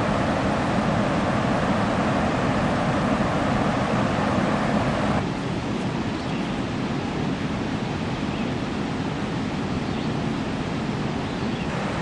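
Steady rush of a river running over rocks in shallow rapids. About five seconds in it cuts abruptly to a quieter, even rush.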